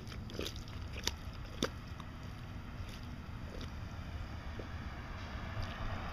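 Armadillo digging, its claws scratching at the soil in a few sharp scrapes in the first two seconds. A steady low rumble runs underneath.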